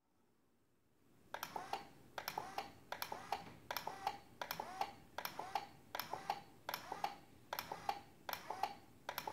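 Car windshield wiper motor turning a pan-mounted Nest Cam. A squeaky clicking from the gearbox and shaft repeats about every 0.8 s over a faint running hum.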